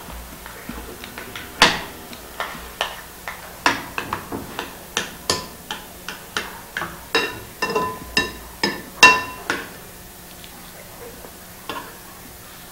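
Utensils clinking and tapping against dishes during a meal, a quick irregular run of sharp clicks, some ringing briefly, dying away after about ten seconds.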